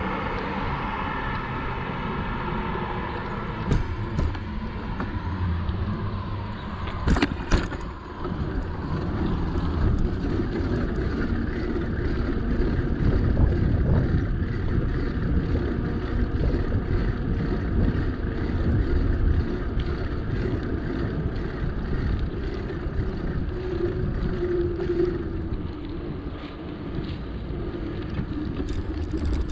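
Wind rumbling on the microphone with road and tyre noise from a moving bicycle. A passing motor vehicle's hum fades away at the start, and a few sharp knocks come around four and seven seconds in.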